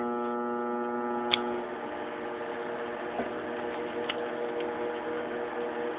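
Microwave oven running with a steady electrical hum while heating M&M's, with a few faint clicks.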